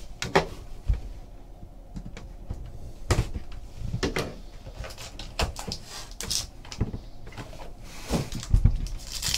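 A trading card hobby box being opened and handled: a series of light knocks, taps and sliding scrapes as the lid is lifted off and the box's contents are taken out.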